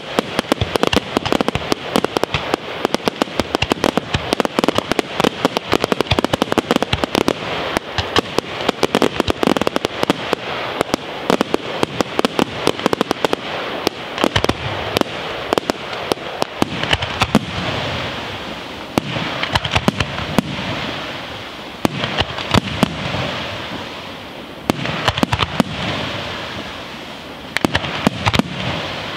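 Aerial fireworks display: a rapid, dense barrage of shell bursts and sharp crackling. Past the middle it eases into a steadier crackling hiss for several seconds, then the bangs come thick again near the end.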